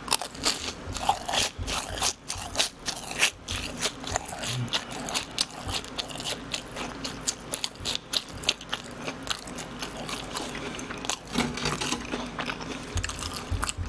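A person chewing a mouthful of BHC cheese balls, cheese-filled dough balls: a continuous run of crackly crunching and wet chewing sounds.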